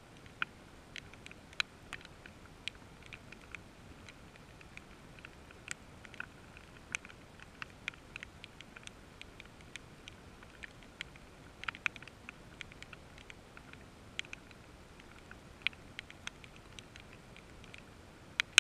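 Rain: single drops tapping close by on a hard surface, several a second at uneven intervals, some much louder than others, over a faint steady hiss.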